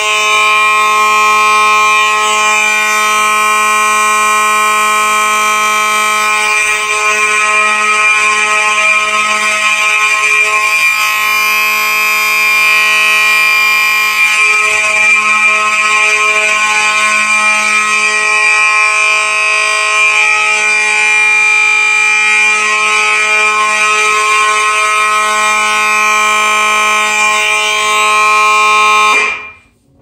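Gentex GMS electromechanical horn and Gentex SHG electronic horn sounding together in alarm, steady and unbroken. The GMS is incredibly loud, louder than the SHG. Both cut off abruptly near the end.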